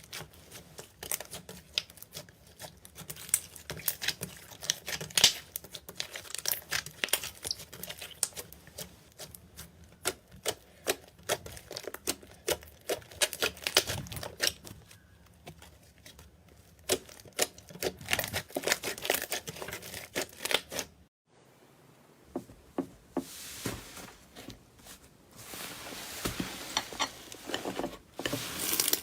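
Slime squeezed and worked by hand, giving quick irregular sticky clicks and pops. About two-thirds of the way through the sound cuts abruptly and changes to a softer, steadier crackle with scattered clicks.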